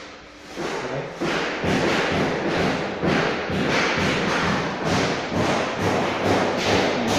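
Rapid, steady hammer blows on masonry, about two to three strikes a second, starting about half a second in.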